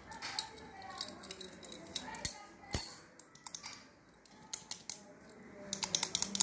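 Metal clicks and clinks of a small steel padlock and its key being handled and taken apart by hand, with a sharp knock about three seconds in and a quick run of small clicks near the end.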